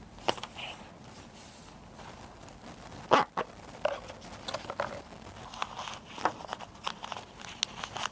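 Handling noises: irregular small clicks and rustling of a plastic packaging bag and a small metal injector valve part being handled, with one sharper click about three seconds in.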